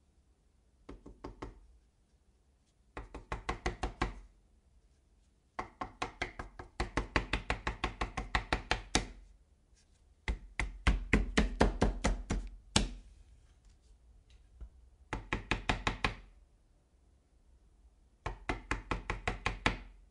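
Angry knocking on a door: six bursts of rapid blows, about six or seven a second, with short pauses between them. The longest volleys run about three seconds, and one last hard knock closes the fourth burst.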